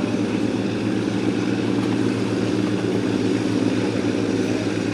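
Boat engine running steadily at speed, a low even drone with a fast pulse, over the rush of water and wind.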